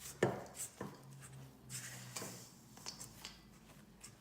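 Hand-mixing stiff biscotti dough in a bowl: a series of short scrapes, knocks and squishes as the utensil works through the dough and hits the bowl.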